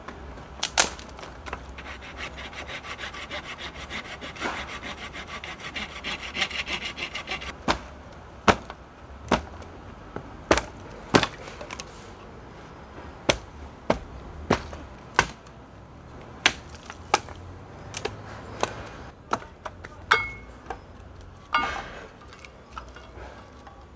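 Small hand saw cutting through a dry branch in quick strokes, about four a second, for the first several seconds. Then come sharp cracks about once a second as dry sticks are snapped underfoot. Near the end sticks clatter against a metal wheel-rim fire pit.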